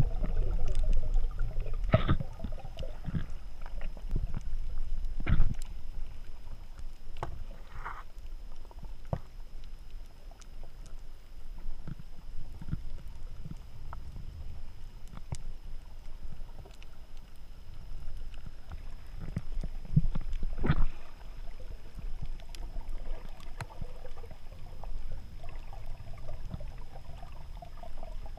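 Muffled underwater sound through a GoPro's waterproof housing: a low steady rumble of moving water with scattered knocks and clicks, the loudest about two, five and twenty seconds in.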